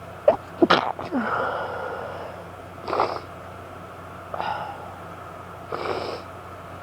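A woman sneezing several times in a row during an allergy fit, a sharp cluster in the first second and then single sneezes about a second and a half apart, the first the loudest.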